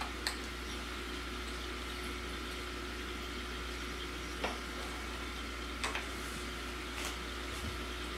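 Aquarium air stones bubbling steadily over a constant low hum, with four faint clicks spread through it.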